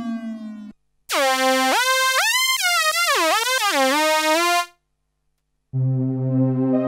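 Novation Peak synthesizer played direct: a falling drone tone ends abruptly. Then the 'G-Funk Lead' preset plays a bright single-note lead line that slides up and down between notes for about three and a half seconds. After a short pause, the 'Gothic Pad' preset starts a sustained chord near the end.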